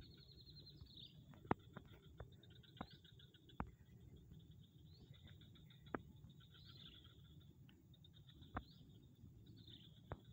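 Faint, high-pitched chirping and trilling of small birds, a short call every second or two, with a few sharp clicks.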